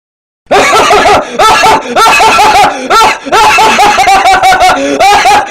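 A high-pitched, rapid laugh sound effect: a quick run of short 'ha' syllables, about five a second, starting about half a second in after a moment of silence.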